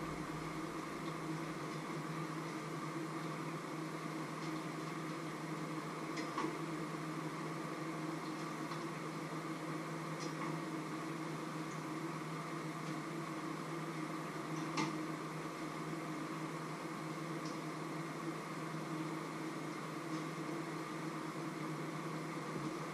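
A steady machine hum, like a running fan, with a couple of faint clinks of a utensil against a frying pan as food is turned.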